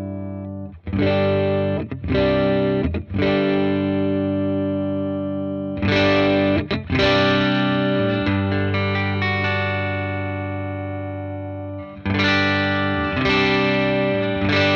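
Electric guitar, a Fender Custom Shop '67 Stratocaster, played through a Dr. Z Maz 38 Senior Reverb 2x12 tube combo amp. Chords are struck one after another and left to ring out, with fuller, brighter strums about six seconds in and again near twelve seconds.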